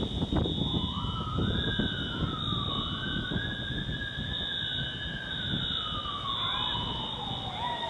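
An emergency siren wailing: one slow rise in pitch about a second in, held high for a few seconds, then a long falling glide toward the end. It sounds over a steady low rumble and a steady high hum.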